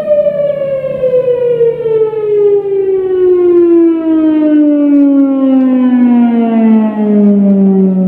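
Federal Signal Thunderbolt 1000 outdoor warning siren winding down at the end of a test: its held tone starts falling right away and keeps sliding steadily lower in pitch as the rotor coasts down.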